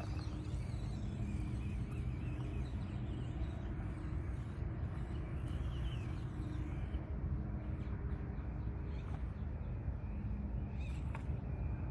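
Axial SCX24 Deadbolt micro crawler's small electric motor and gears running at a crawl as it works down a rocky line, faint under a steady low rumble.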